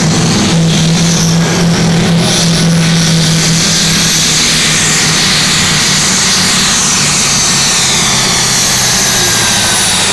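Green Oliver pulling tractor's diesel engine running hard under full load while dragging a weight-transfer sled, black smoke pouring from the stack. The engine noise is loud and steady, with a high whine that falls in pitch near the end.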